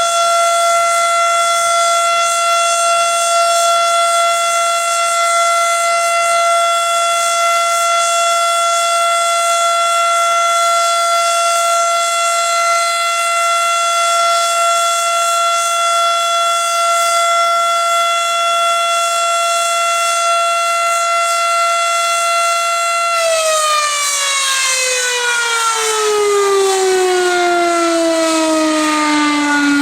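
Federal Signal Model 7 tornado warning siren sounding the steady tone of a 3-minute alert. About 23 seconds in it is switched off and winds down, its pitch falling steadily as the rotor slows.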